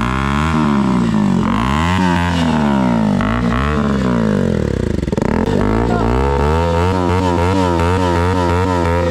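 KTM RC200's single-cylinder engine through an aftermarket Akrapovic exhaust, revved up and down over and over. Near the end come quick throttle blips, about three a second.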